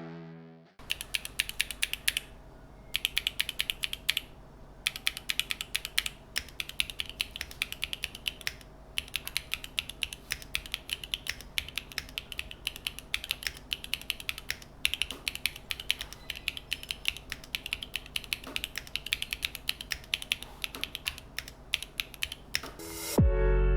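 Typing on a NEO65 mechanical keyboard with Gateron Smoothie linear switches (POM housings and stem) and no foam inside: a fast run of keystroke clacks with a few short pauses. It starts about a second in and stops just before the end.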